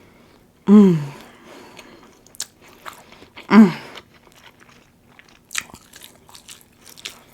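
Close-up eating sounds: biting and chewing a chicken breakfast sandwich, with small crunchy clicks. Two short vocal sounds falling in pitch come about a second in and again near the middle, the second the loudest.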